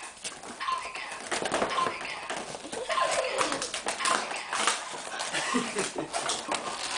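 A cardboard box being handled and opened: irregular rustling, scraping and tapping of cardboard, with a short high chirp-like tone about once a second.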